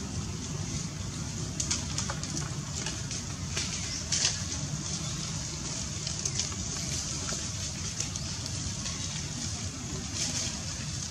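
Outdoor ambience: a steady low rumble and a steady high hiss, broken by a few short crackles, the loudest about four seconds in.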